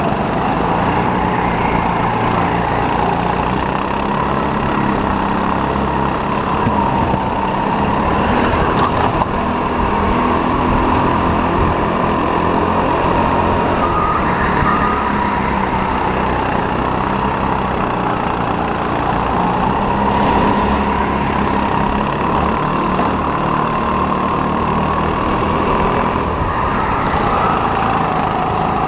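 Onboard sound of a racing kart at speed: the engine runs with a steady drone that slowly rises and falls in pitch, over a continuous low rumble.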